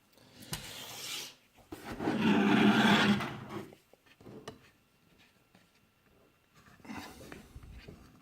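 Rubbing and scraping from hand work on a lock, in a few rough stretches, the loudest from about two to three and a half seconds in.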